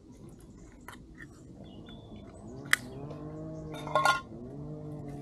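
A beagle making a run of low, drawn-out moaning calls, several in a row starting about halfway in. A sharp click and a short, loud clatter come in the middle.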